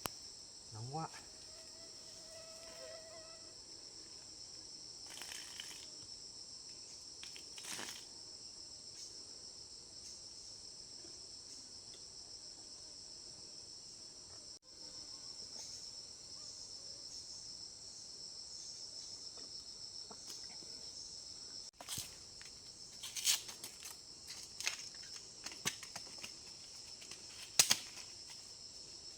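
Steady, high-pitched chorus of insects, crickets or cicadas, droning without a break. A handful of sharp snaps and clicks come in the last third.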